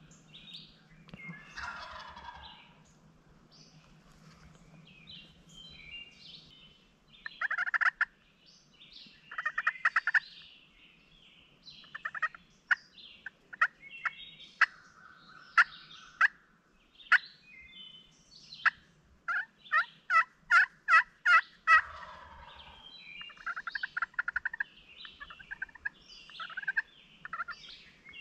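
Wild turkey calling: rattling gobbles about a quarter of the way in, then a quick run of about eight loud, sharp yelps about two-thirds of the way through. Songbirds chirp throughout.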